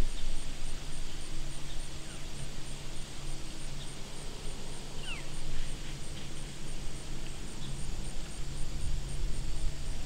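Outdoor woodland ambience: a steady noisy background with a low rumble that rises and falls, under a faint steady low hum. A couple of short falling chirps, like a small bird, sound about five seconds in.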